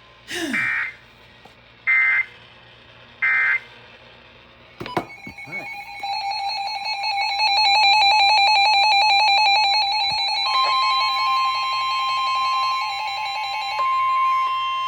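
Emergency Alert System alert start: three short SAME header data bursts about a second and a half apart. About five seconds in the two-tone EAS attention signal follows, a loud steady pulsing alarm, and about ten seconds in a second steady single-pitched warning tone joins and carries on after the two-tone signal stops.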